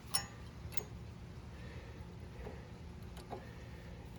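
A few light metallic clicks as a new brake pad is seated into the disc brake caliper bracket: two in the first second, one more a little past three seconds in.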